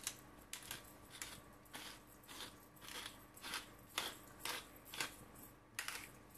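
Black pepper being ground over the potato wedges with a pepper mill: short grinding strokes, about two a second.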